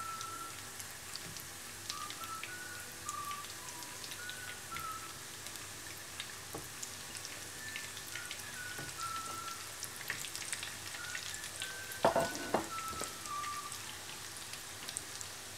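Hot oil sizzling and crackling steadily as lumps of gram-flour dough shallow-fry in a pan. Two short knocks about twelve seconds in.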